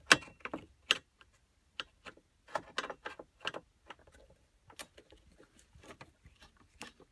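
Screwdriver backing a Phillips screw out of the minivan's plastic dashboard trim: a string of sharp, irregular clicks and ticks as the tool turns and is repositioned in the screw head.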